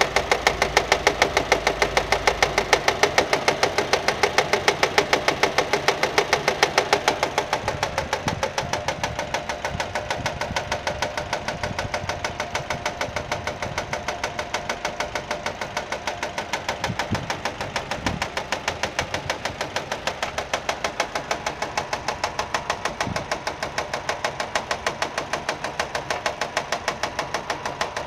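Nissan Micra 1.2 petrol engine idling with a rapid, even knocking that runs without a break. The noise was traced to a fraying alternator belt slapping against the metal bodywork as it turns, not to a fault in the engine itself.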